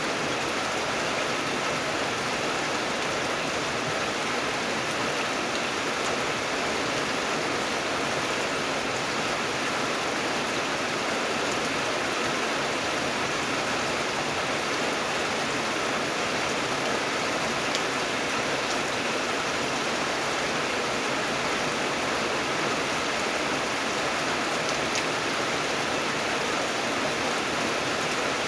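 Steady rain falling, an even hiss of drops with a few faint individual drop ticks.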